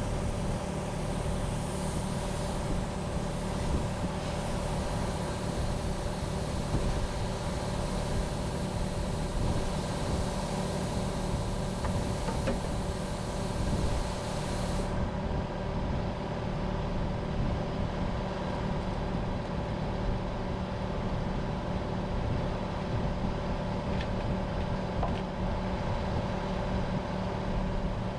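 Mini skid steer's engine running steadily at a constant speed.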